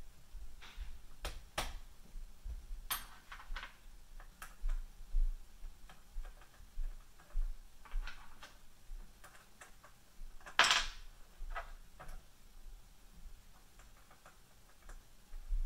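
Handling noise from assembling a desktop CNC router's frame: irregular small clicks and knocks of metal parts as the linear bearing blocks and rods are fitted. One louder, longer knock comes about two-thirds of the way through.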